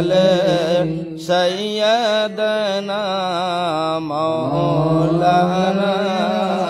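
A man's voice chanting an Islamic devotional recitation into a microphone over a loudspeaker, in long wavering, ornamented phrases over a steady low held note.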